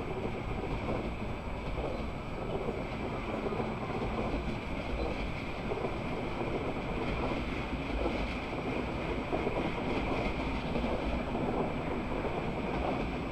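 Passenger train rolling past through a station: a steady rumble and hiss of wheels on track that goes on evenly without distinct clicks.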